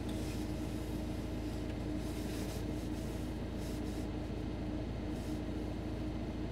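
Steady low hum with a faint constant tone and hiss in a car cabin, with no radio audio: the transceiver's squelch is closed between the space station's transmissions.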